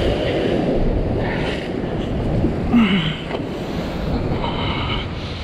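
Ocean swell surging and breaking into white water against a sandstone rock ledge, with wind buffeting the microphone.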